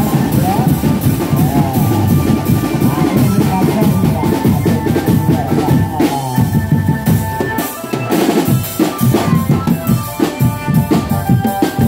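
Loud drum-heavy music with a steady beat of bass drum, snare and rimshots, with a melody line running over the drums.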